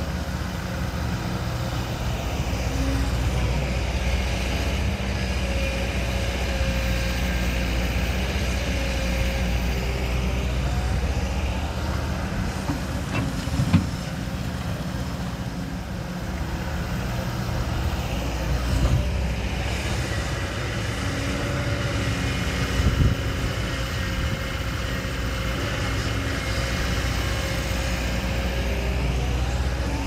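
Diesel engine of heavy earthmoving machinery running steadily under load, swelling and easing in two long cycles. A few sharp knocks, the loudest about halfway through.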